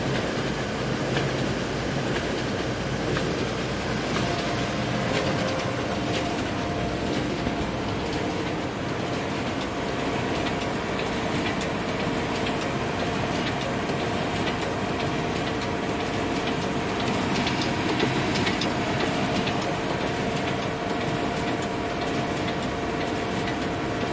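Xerox Versant 2100 production press running continuously as it feeds #10 envelopes through and out into its stacker: a steady mechanical whir with rapid light clicks, and a steady hum that joins about four seconds in.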